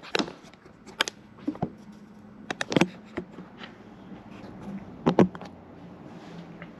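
Scattered short knocks and clinks of tools and parts, about a dozen in small clusters, while a Mercedes 722.6 automatic transmission is being worked loose for removal; the sharpest come a little under 3 s in and just after 5 s, over a faint steady hum.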